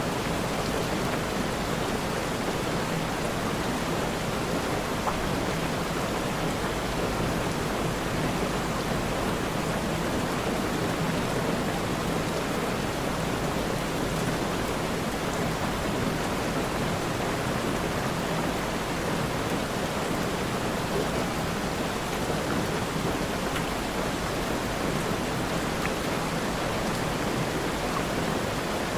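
Steady rain falling, heard as an even, unbroken hiss with no distinct drops, thunder or other events.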